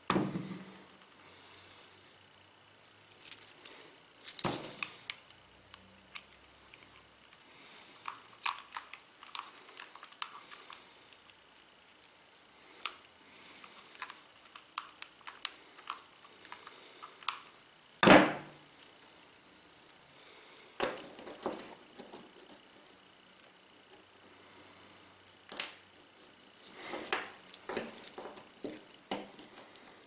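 Stainless steel multitool bracelet links clinking and rattling as they are handled, with small clicks of a screwdriver working the link screws. A few louder knocks stand out: one right at the start as the screwdriver is set down on the table, and the loudest about 18 seconds in.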